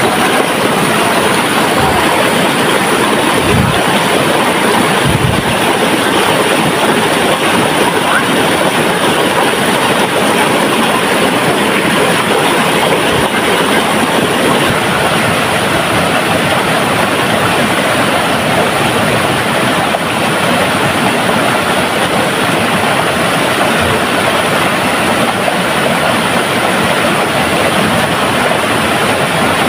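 Steady rushing of a muddy river running high and fast over rocks after rain, a loud, even noise that does not change.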